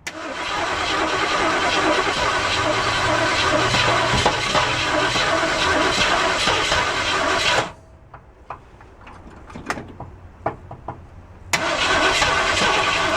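1967 Ford Mustang engine cranking on its starter with sputtering, struggling to start but not catching. The cranking stops about eight seconds in, leaving a few seconds of light clicks and knocks. It starts again near the end.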